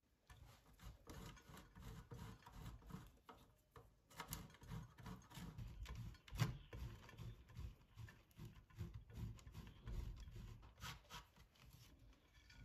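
Hard cheese being grated on a stainless steel box grater: quick repeated rasping strokes, with one sharper knock about six seconds in.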